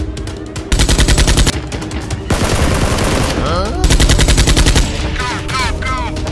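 Two bursts of rapid automatic gunfire, a sound effect laid over the scene of a Nerf blaster being fired. One burst comes about a second in and another about four seconds in, with a noisy rush and sweeping tones between and after them, over background music.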